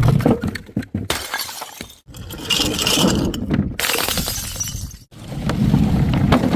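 Glass bottles smashing and shattering, with repeated crashes and the clinking and crackle of scattering shards. The sound breaks off abruptly twice, about 2 and 5 seconds in, as separate smashes follow one another.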